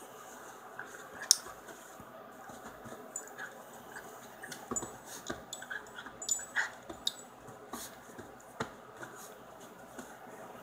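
A small curly-coated dog at play with a toy held in a hand: scattered sharp clicks and scuffles as it snaps and mouths at the toy.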